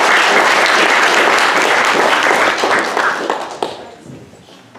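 Audience applauding, a dense patter of many hands clapping, which dies away about three and a half seconds in.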